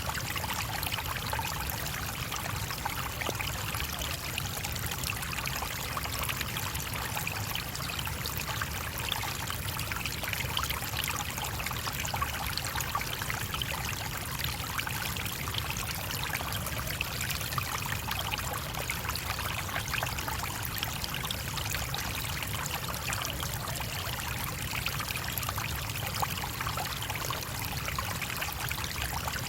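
Small stream running over stones: a steady babble of flowing, trickling water with fine splashing detail.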